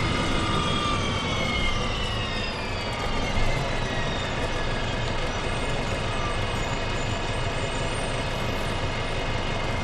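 1995 Gillig Phantom transit bus with a Detroit Diesel Series 50 four-cylinder diesel and three-speed Voith transmission, running in service. A whine falls in pitch over the first few seconds, then the engine and driveline settle into a steady drone.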